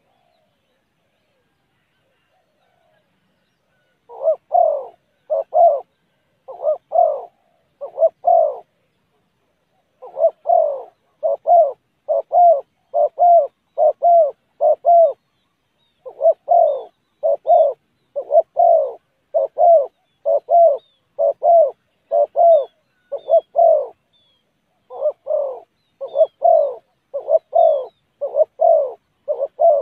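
Spotted dove cooing: a long series of short, hoarse coos, about one a second, in runs with brief pauses, starting about four seconds in.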